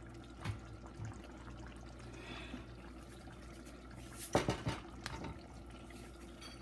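Liquid sloshing and splashing in a pot of fish stew in tomato sauce, over a steady low hum. A few light knocks come in the first second, and about four seconds in a blue-rimmed container handled over the pot brings a brief burst of clatter and splashing, the loudest moment.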